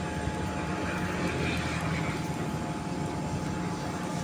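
A steady, low engine drone with a constant hum.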